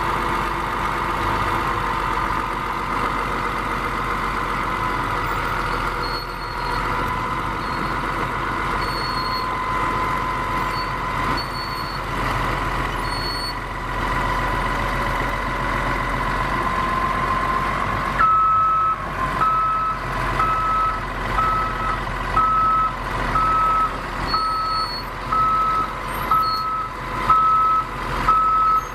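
Caterpillar D6R bulldozer running, its engine sound carrying a steady whine. About two-thirds of the way in, its reversing alarm starts beeping about once a second as the machine backs up.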